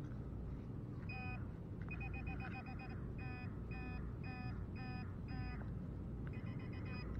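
Metal detecting pinpointer probed into a dig hole, giving a series of short electronic beeps, about two a second, with two stretches of rapid pulsing around two seconds in and near the end. The beeping is the pinpointer's alert that a metal target is close in the soil.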